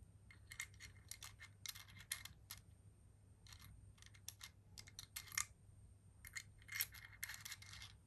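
Faint, irregular metallic clicks and clinks of a hex nut and washer being handled and threaded onto the threaded shaft of an electronic cabinet lock. The sharpest clicks come a little past the middle and again near the end.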